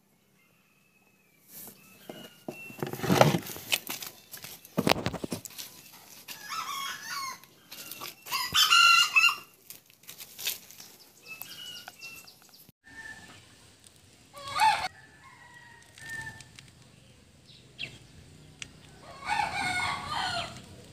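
Rooster crowing about three times, loudest about nine seconds in, with chickens clucking between the crows. A few sharp knocks or bumps come in between, the loudest about three seconds in.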